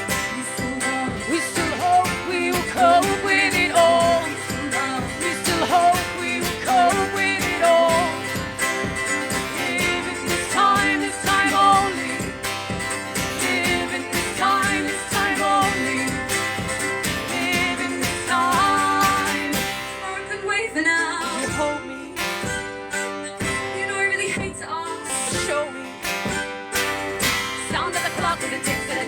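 Acoustic guitar with a sung melody over it, a live song; the accompaniment thins out briefly about twenty seconds in.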